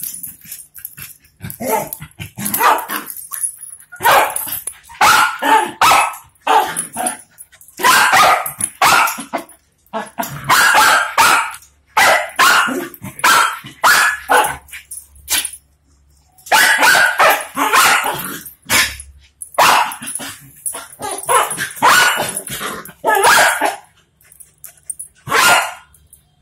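Dogs barking in rough play, in quick irregular bursts broken by short pauses.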